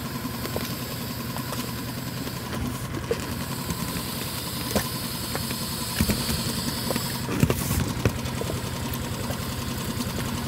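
Mercury 2.5 hp four-stroke outboard idling steadily, with a few sharp knocks about six and seven and a half seconds in.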